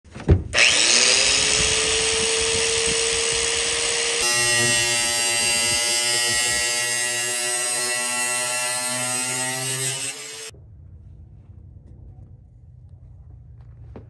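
Angle grinder cutting metal. It spins up with a rising whine into a steady grinding hiss, changes sound abruptly about four seconds in, and cuts off sharply about ten seconds in.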